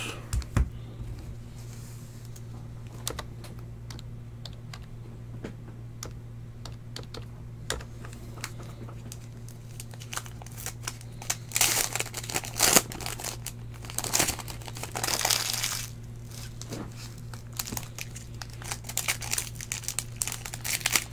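Foil trading-card pack wrappers (2015 Panini Prizm Football) crinkling and tearing as they are handled and opened, among small clicks and taps. The louder crinkling comes in bursts around the middle and again near the end.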